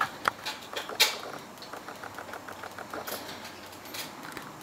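Studer A800 multitrack tape machine working mechanically: a few sharp clicks in the first second, then a quick, even run of ticks, about eight a second, for a second or two.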